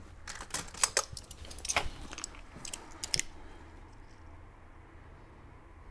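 Metal drill bits clinking and rattling as they are handled, a quick run of clicks for about three seconds, then quiet.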